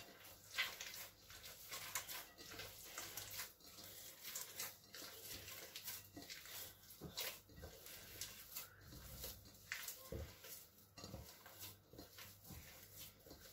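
Hand mixing wet bread dough in a glass bowl: faint, irregular squelches and soft taps.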